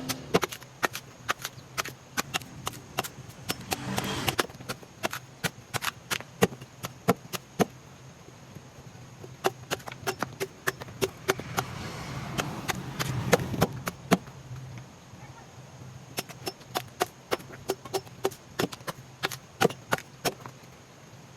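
Many sharp, irregular knocks of a hand tool striking wood, about two to four a second, as in chopping or chiseling wood for carving. A low rumble swells briefly twice.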